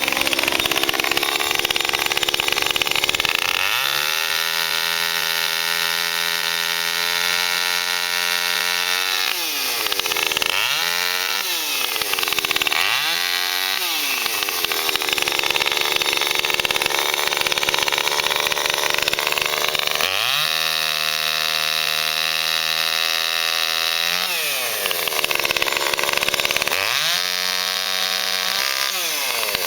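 Small petrol chainsaw running hard in long stretches at high revs, as when cutting through a fallen tree trunk. Between cuts it drops back to a low idle, with two quick revs up and down in the middle.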